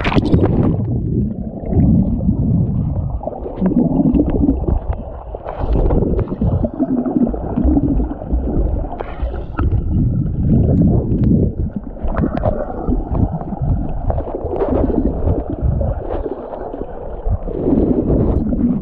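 A splash, then muffled gurgling and bubbling of pool water heard with the microphone under the surface, coming in uneven surges.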